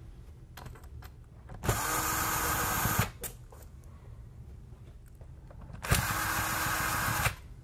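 Cordless screwdriver running twice, about a second and a half each time, backing out cover screws, with light clicks of handling between the runs.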